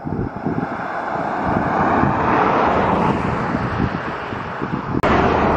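Wind buffeting the microphone: a rushing noise with irregular low rumbles that swells about two seconds in.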